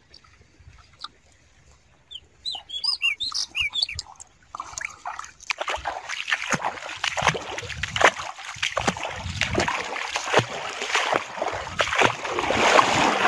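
A bird chirps a few times in the first seconds. From about halfway in, water splashes and sloshes in a rough, continuous stream of small strokes that grows louder toward the end.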